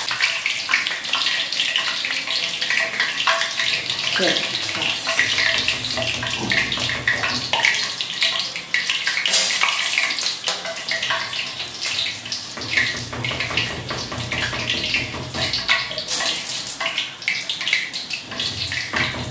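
Boondi (drops of gram-flour batter) frying in hot oil in a karahi: a steady, dense sizzle and crackle, with occasional knocks and scrapes of a metal skimmer against the pan.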